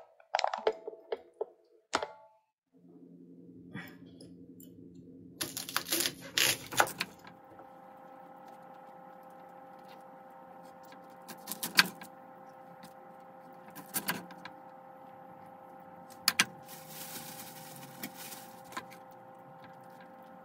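Kitchen prep sounds: scattered knocks and clicks as Brussels sprouts are trimmed with a knife on a wooden cutting board and set into a metal roasting tray, with a short rustle near the end. A steady mechanical hum runs beneath from a few seconds in.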